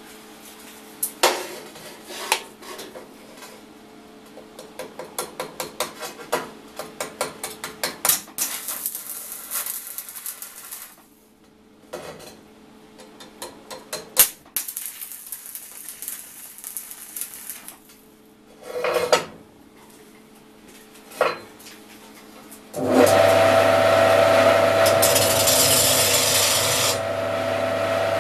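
Electric arc welding on steel: stretches of crackling, sizzling hiss with a few louder bursts, mixed with sharp metal knocks and quick scraping strokes. About five seconds before the end a loud steady machine with a low hum starts up and runs on.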